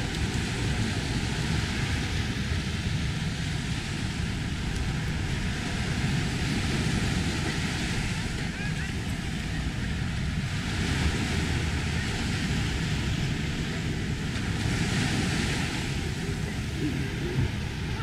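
Small ocean waves breaking and washing up a sandy beach, with a steady wind rumble on the microphone. The wash swells louder about halfway through and again near the end.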